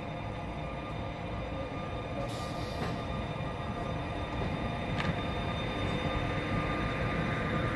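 Newag Griffin EU160 electric locomotive and its coaches rolling slowly on approach, growing steadily louder, with a steady whine under the running noise. A short hiss comes about two and a half seconds in, and a sharp click near the middle.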